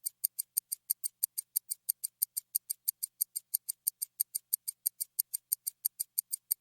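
Rapid, evenly spaced ticking, about six sharp, high-pitched ticks a second, each exactly like the last: a clock-like ticking sound effect.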